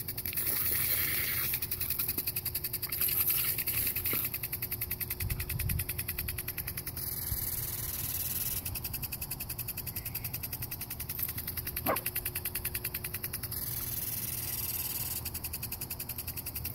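Lawn sprinkler ticking rapidly and evenly as its jet turns. About twelve seconds in, a dog gives one short yip.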